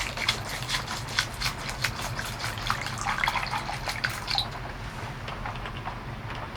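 Raindrops and drips tapping irregularly, thick for the first four seconds or so and then thinning out, over a low steady hum.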